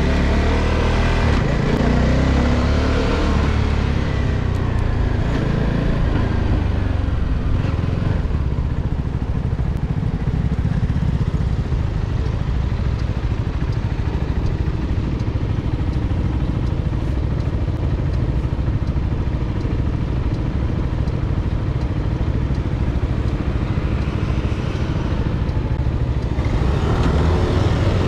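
CFMOTO 250SR's single-cylinder engine. Its pitch shifts in the first few seconds as the bike slows to a stop, then it idles steadily with a low rumble for most of the time. Near the end, engine noise rises again as traffic pulls away.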